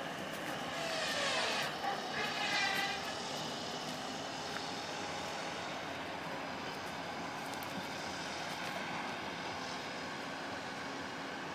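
Steady outdoor din across a busy showground, a continuous drone with no single clear source. About one to three seconds in, a brief higher-pitched sound with a wavering pitch rises above it.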